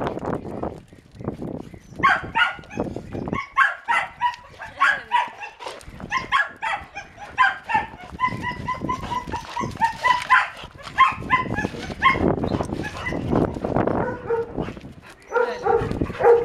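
Yellow Labrador-type dog giving quick runs of short, high yips and whines, a few cries a second, with the odd bark.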